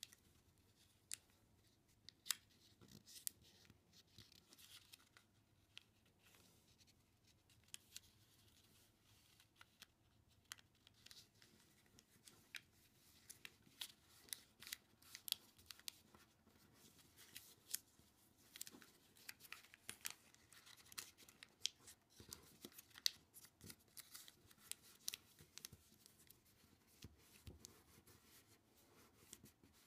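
Origami paper being folded and creased by hand: quiet rustling and crinkling with many small sharp crackles, growing busier after about twelve seconds and thinning out near the end.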